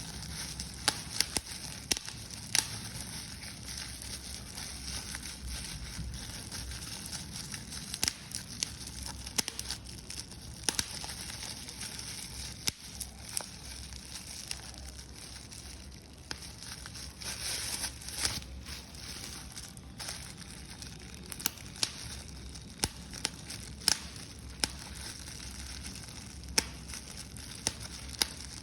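Paper being crumpled and crushed by hand: an irregular run of sharp crackles and crinkles, with a few louder snaps.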